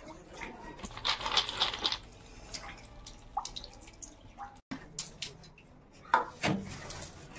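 Water poured from a plastic mug into a clay pot, splashing and dripping about a second in. It is followed by a few scattered clicks and knocks.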